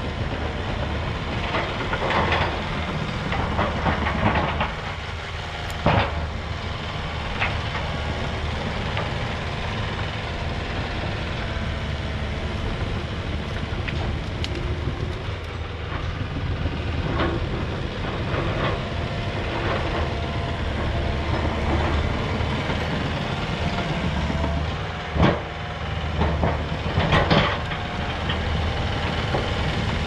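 Tracked excavator's diesel engine running steadily while it works a pile of brush and felled trees, with scattered cracks and snaps of branches and wood; the sharpest come about six seconds in and just before the end.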